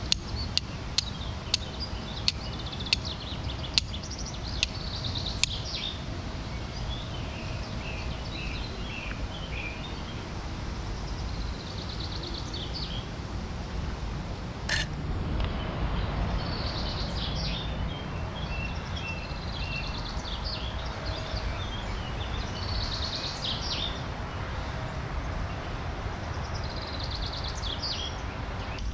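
Flint and steel being struck: about eight sharp clicks, one every two-thirds of a second, in the first five seconds or so, and one more near the middle. After that comes a rushing, breathy noise as the tinder bundle is blown into flame, with birds singing throughout.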